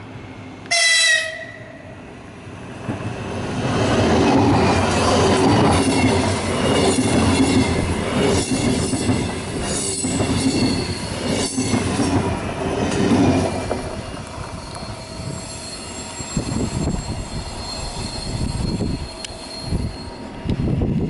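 Lastochka (Siemens Desiro RUS) electric train sounding one short horn blast about a second in, then passing close with loud rolling wheel noise and a few sharp clicks over the rail joints. The noise falls to a quieter rolling rumble of an electric train near the end.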